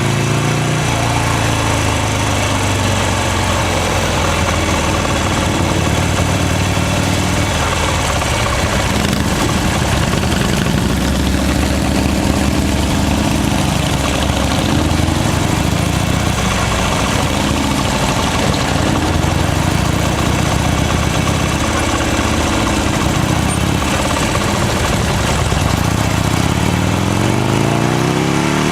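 Buell XB9S Lightning's air-cooled V-twin engine on the move, revs falling at the start, then running low and steady for most of the stretch, and climbing again near the end as it accelerates.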